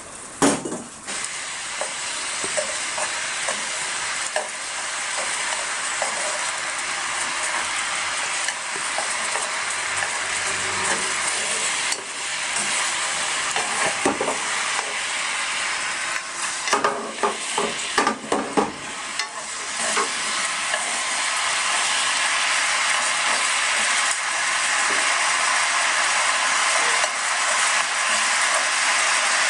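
Chicken frying in a pan with a steady sizzle that grows louder toward the end, while a utensil knocks and scrapes against the pan, once near the start and in a cluster of strokes a little past the middle.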